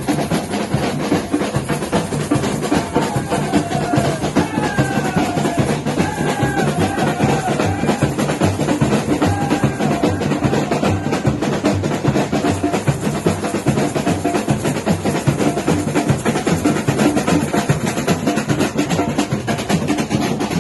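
Batucada samba percussion ensemble playing a fast, dense drum rhythm. Some sliding high tones sound over the drums for a while in the first half.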